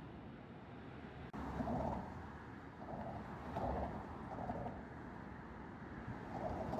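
Steady traffic noise on a bridge, with soft sounds repeating about once a second and a brief dropout about a second in.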